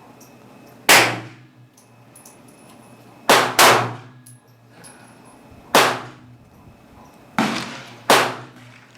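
Six gunshots fired at irregular intervals on a shooting range, each a sharp crack that tails off in a brief echo; two come in quick succession about three seconds in.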